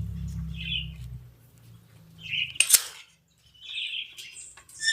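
Chickens giving short, high clucking calls, three separate bursts, with one sharp crack between the second and third and a low rumble in the first second.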